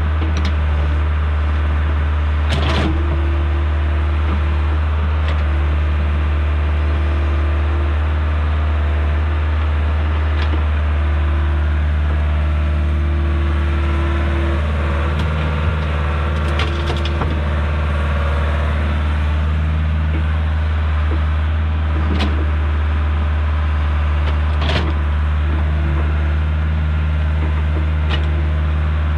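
Excavator's diesel engine running steadily under load while digging, a constant low drone with a wavering higher tone over it, and a few sharp knocks scattered through.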